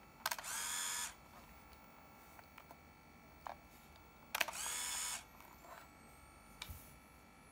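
Minolta Riva 100AF compact 35mm camera fired twice, about four seconds apart. Each release gives a sharp click followed by a steady motor whir of just under a second, with a few faint clicks of handling in between.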